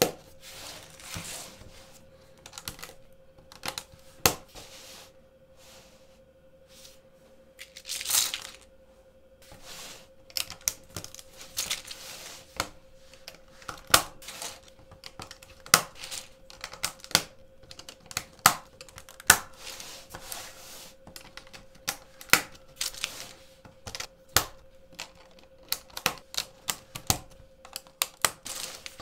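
Plastic LEGO plates clicking and clattering as a hinged build of stacked plates is flexed and turned by hand: irregular sharp clicks, some in quick runs, with short sliding rustles between them. A faint steady hum sits underneath.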